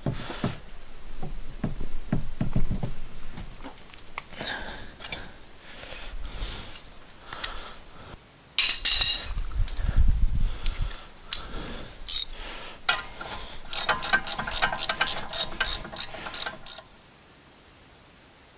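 Hand socket wrench ratcheting, with metal clinks and knocks, as the two 17 mm rear brake caliper bracket bolts are loosened and backed out. A long run of fast ratchet clicks comes in the last few seconds.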